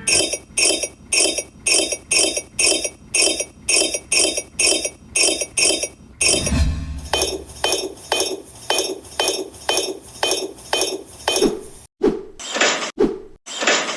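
Rapid, evenly spaced light clinking taps, about three a second, hard small objects striking one another. There is a short break about six seconds in, and the taps slow and grow heavier near the end.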